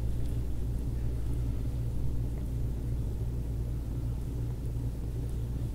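Steady low rumbling hum of room background noise, unchanging throughout.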